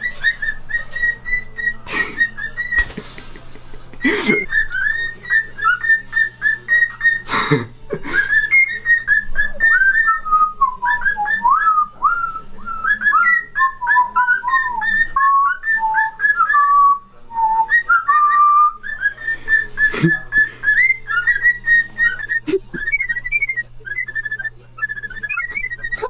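Male cockatiel whistling its courtship song: a long run of short, repeated whistled notes that dip and rise. A few sharp, louder noises break in during the first eight seconds and again about twenty seconds in.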